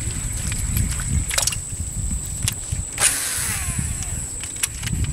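Wind rumbling on the microphone, with a steady high-pitched drone of crickets or other insects. Over it come a few sharp clicks and a brief rushing noise about three seconds in.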